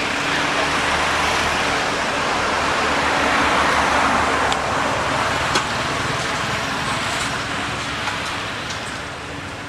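Road traffic: a passing vehicle's engine hum and tyre noise swelling to a peak about four seconds in, then fading. A short sharp click about halfway through.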